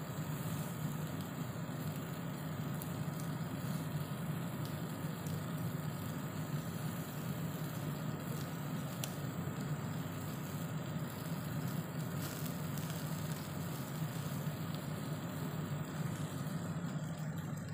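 Chicken sizzling on a wire grill over charcoal, with a few faint crackles, against a steady low hum.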